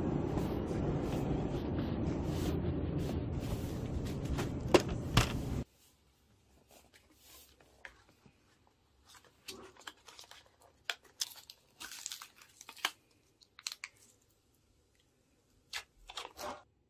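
Steady convenience-store background noise with two sharp clicks, cut off suddenly; then short bursts of crinkling and tearing as the cardboard sleeve comes off a plastic custard pudding cup and its film lid is peeled back.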